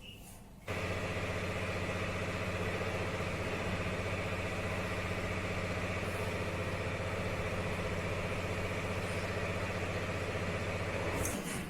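A machine's motor running at a steady pitch with a low hum, switching on abruptly about a second in and cutting off shortly before the end.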